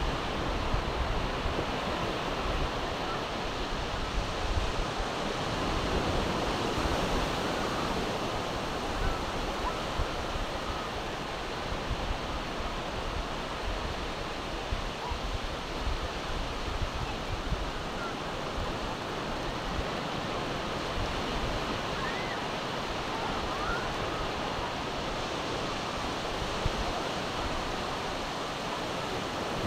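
Steady surf washing onto a flat sandy beach, with wind buffeting the microphone in a low, uneven rumble.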